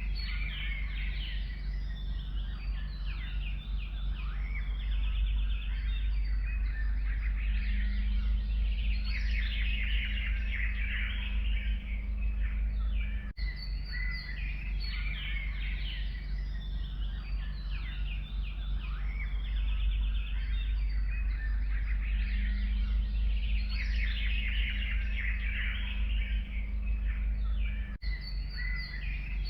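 Several forest songbirds singing and chirping together over a steady low background rumble. The same stretch of recording repeats about every 15 seconds, with a brief dip at each seam.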